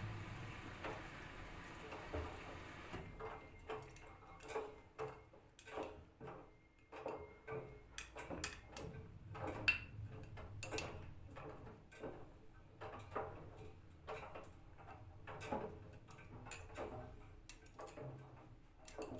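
LG front-loading washing machine on a cold sportswear cycle, its drum turning and tumbling a load of bags: irregular knocks and clicks, one or two a second, as the items drop against the drum. A steady hiss stops about three seconds in.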